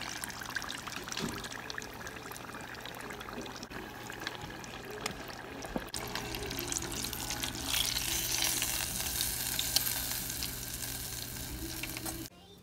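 Breaded tilapia strips deep-frying in hot oil in a small electric FryDaddy deep fryer: steady sizzling and crackling, with a slotted spoon stirring in the oil. The crackle swells for a couple of seconds about two-thirds of the way in and cuts off abruptly near the end.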